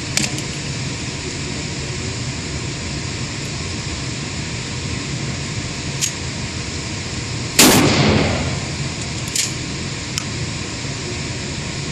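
A single loud gunshot about three-quarters of the way through, echoing for about a second, over steady background noise. Several fainter single shots are also heard, from other shooters.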